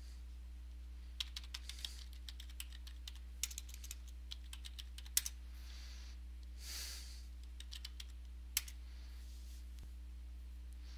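Computer keyboard being typed on: irregular keystroke clicks in short runs, one louder key press about eight and a half seconds in, over a steady low electrical hum.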